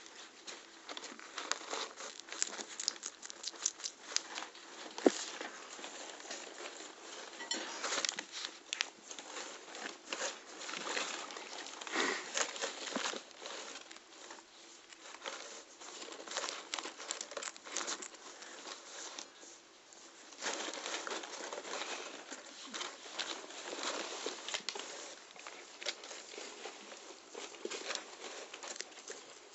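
Guinea pigs biting and chewing crisp yellow bell pepper, a constant irregular crunching and crackling, mixed with rustling of paper in the run. One sharp snap stands out about five seconds in.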